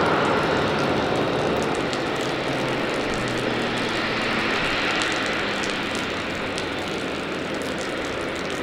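Steady drone of parked jet airliners on the apron, with a low hum underneath and light scattered ticks.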